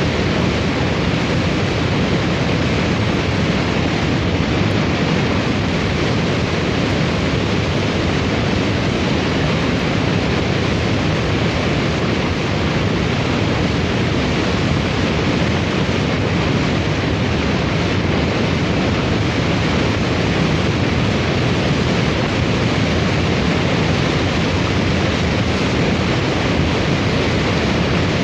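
Vintage hurricane wind sound effect: a loud, steady rush of wind noise that stays even throughout, with no distinct gusts.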